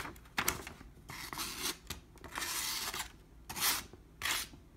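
The very sharp plain edge of a Gerber StrongArm fixed-blade knife shaving slivers off the edge of a sheet of paper: about six short, dry scraping strokes with brief pauses between them, showing the blade is sharp out of the box.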